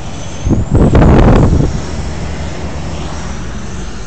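Road and wind noise while riding in a vehicle at highway speed, with a louder rush lasting about a second, about a second in.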